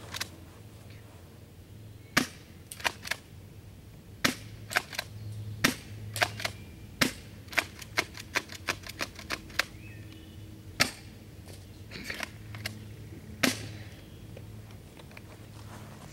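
UTG Trishot spring-powered airsoft pump shotgun being racked and fired over and over: an irregular run of sharp clicks and snaps, a few of them much louder than the rest.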